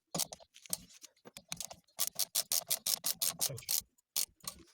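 Ratchet wrench clicking in quick, irregular runs while bolts are wound into the threaded holes of a Fiat Punto's rear brake drum to press the seized drum off the hub.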